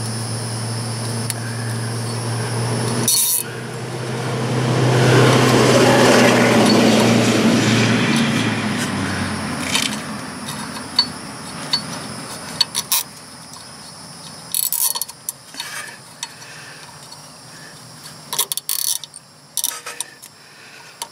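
A steady low hum and a rush of noise that swells to a peak and fades over about five seconds, like a passing vehicle. Then quieter rustling and light clicks as electrical tape is wrapped around a wire.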